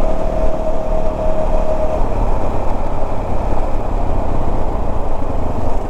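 Motorcycle running on the road, its engine hum mixed with steady wind rush on the rider's microphone; a steady tone in the engine sound drops away about two seconds in.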